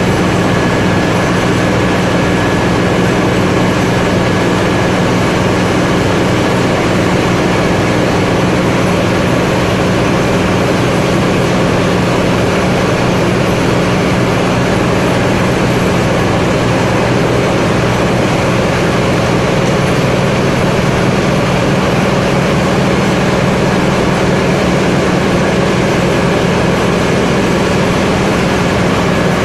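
Flour mill and bag-packing machinery running steadily: a loud, unchanging low drone with a faint high whine over a mechanical din.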